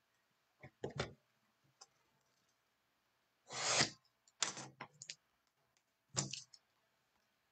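A cardboard trading-card hanger box being handled, picked up and set down on the table: a handful of short scuffs and knocks, the longest and loudest about three and a half seconds in.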